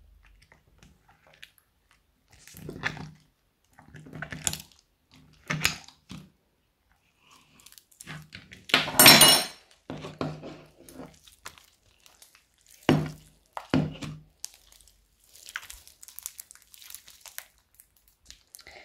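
Purple fluffy slime made of glue and shaving foam being pulled from a plastic cup, stretched and squeezed by hand. It gives irregular sticky crackling and tearing sounds, the loudest about nine seconds in. The slime has set slightly rubbery from the added activator.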